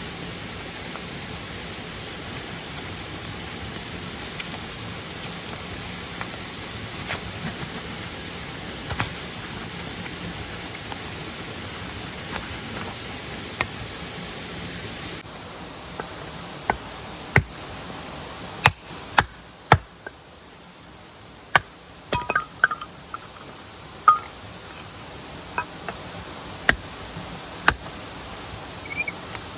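Steady rush of mountain-stream water by a waterfall. About halfway it gives way to quieter surroundings with scattered sharp clinks and knocks of gear being handled.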